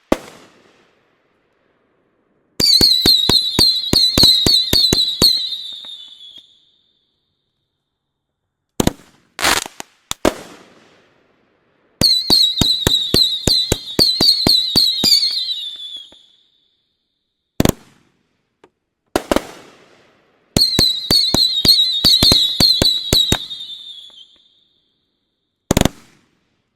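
Gumball Barrage 60-shot XL aerial firework cake firing. There are three runs of rapid shots lasting a few seconds each, with a high hiss over them, and single loud reports between the runs.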